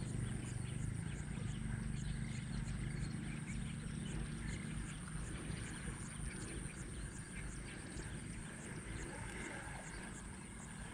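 Outdoor pondside ambience: a steady high, thin insect drone with faint regular ticks, over a low rumble that fades over the first few seconds.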